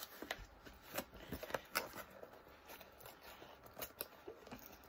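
Faint, irregular clicks and rustles of a small cardboard box being handled and worked open by hand.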